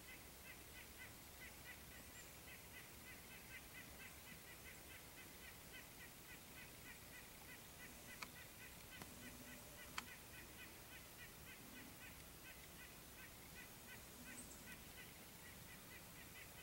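Faint gray squirrel barking: a long, rapid run of short 'kuk' calls, about four a second. Two sharp clicks come about 8 and 10 seconds in.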